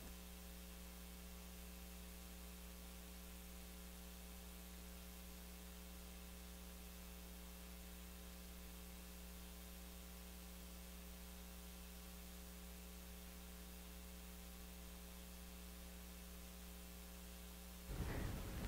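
Steady electrical mains hum with a ladder of overtones, coming through the sound system during a pause. Near the end a louder, rough noise comes in.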